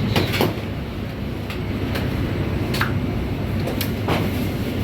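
Bakery machinery running with a steady low hum, with occasional sharp clicks and clanks a few times.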